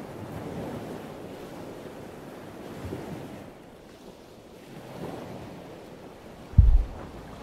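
Wind buffeting the microphone: a rumbling, gusting noise, with one brief, loud low thump near the end.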